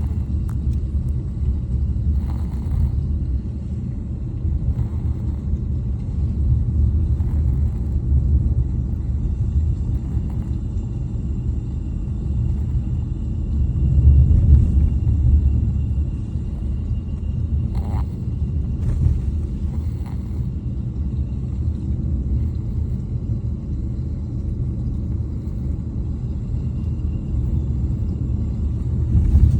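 Steady low road rumble inside a moving car's cabin. Over it, faint snoring breaths from a toddler recur every two to three seconds, the snoring of a nose stuffed up by a head cold.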